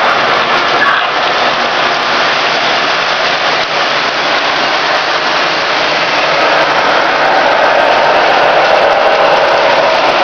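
Several electric model trains running on metal track at once, a steady mechanical whir and rattle of motors and wheels that grows a little louder in the second half.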